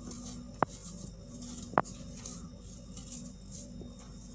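Fingers crumbling and sifting dry baking soda powder from crushed baking soda cups: a soft gritty patter, with two sharp crunches, one early and one nearly two seconds in.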